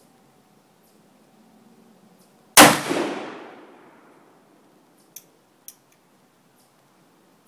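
A single shot from a .44 caliber black powder percussion revolver, a sharp crack with a ringing echo that dies away over about a second and a half. Two faint clicks follow a few seconds later.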